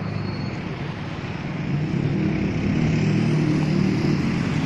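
Motor vehicle engine running with a steady low hum, growing louder from about two seconds in and holding.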